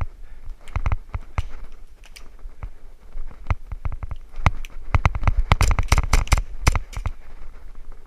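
Airsoft guns firing: irregular single sharp snaps, then a dense flurry of rapid shots for about two seconds past the middle.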